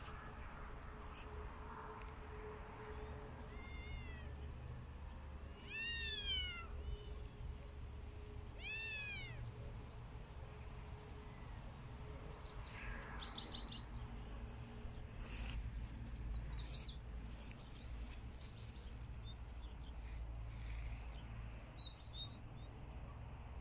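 Kitten mewing: three high-pitched mews, each rising then falling, a few seconds apart in the first ten seconds.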